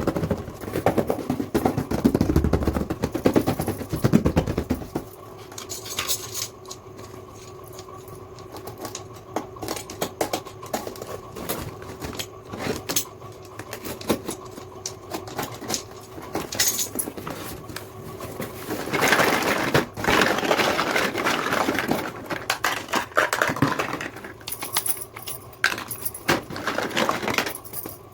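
Small toy kitchen pieces being handled, with many light clicks and clinks of hard plastic and metal, and a denser stretch of rustling about two thirds of the way in.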